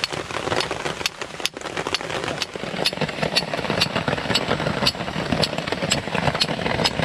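Flint and steel being struck by hand: a steel striker scraped sharply down a flint again and again, about twice a second at an uneven pace, throwing sparks. The strikes sit over a steady rushing background.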